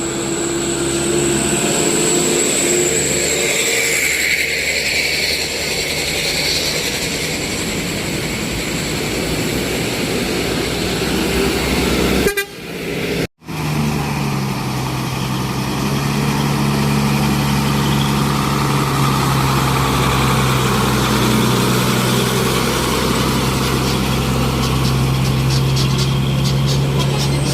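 Vehicle engines running steadily, with a low steady drone in the second half. The sound cuts out briefly about halfway through.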